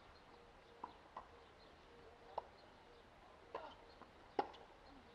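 Tennis rally on a hard court: ball struck by rackets and bouncing, heard as a series of sharp pops about a second apart, the loudest about four seconds in.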